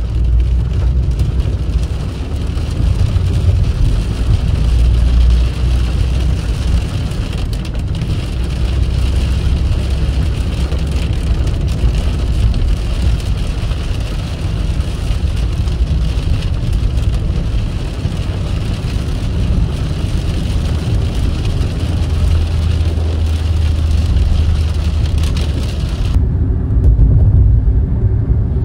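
Steady engine and road drone inside a first-generation Ford Figo petrol hatchback driving through heavy rain, with rain noise on the windscreen and body. Near the end the rain noise cuts off suddenly, leaving only the low drone of the car.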